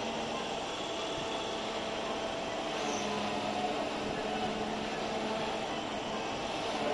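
Sany truck crane's diesel engine running at a constant speed during a lift: a continuous mechanical drone with a steady held hum in it.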